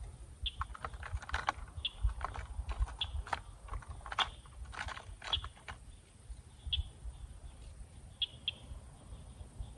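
Irregular small clicks and knocks of fishing tackle being handled in a boat as line and lure are worked with by hand, busiest in the first half.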